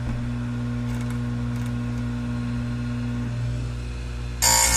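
Tecomec FL-136 chain grinder's electric motor running with a steady hum and whir while the saw chain is advanced to the next cutter. Near the end the spinning grinding wheel is brought down onto a cutter for a brief, loud, harsh grind, a light second sharpening pass on a badly dulled chain.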